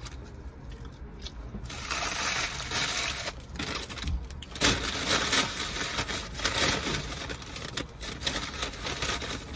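Paper fast-food wrappers and a paper bag rustling and crinkling as they are handled. It starts about two seconds in and goes on unevenly, with short breaks.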